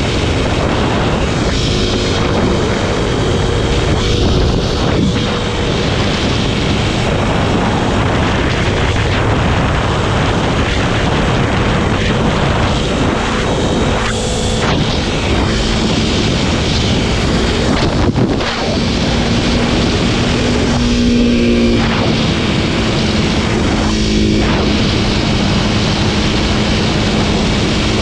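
Kawasaki KLX300SM's single-cylinder four-stroke engine running while riding, mixed with steady wind noise on the microphone. The engine note changes pitch a few times as the throttle is eased and opened.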